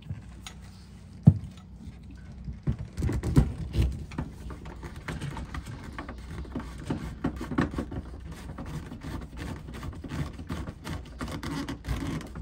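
Plastic clicks, knocks and scrapes of yellow twist-lock shore-power plugs being pushed into and turned in the boat's shore power inlets. There is one sharp click about a second in, then a busy run of small handling clicks and rubs.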